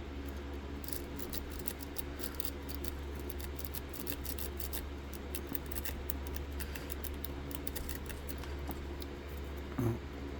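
A rake pick working the pins of a Burg Wachter Atlantic lock: quick, light metallic clicking and scraping that keeps going in irregular runs, over a steady low hum. A brief soft thump comes near the end.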